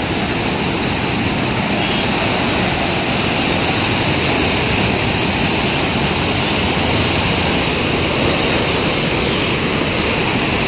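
Canal water rushing and churning in a loud, steady torrent: the pressurised flow that drives water-powered flour mills (panchakki).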